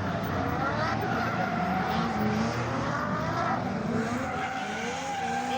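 Drift car engines revving high and sliding up and down in pitch, with tyres skidding.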